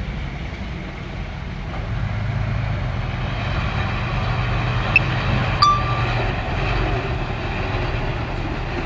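Komatsu bulldozer's engine running steadily under load, with a sharp metallic clank and a brief squeal about five and a half seconds in.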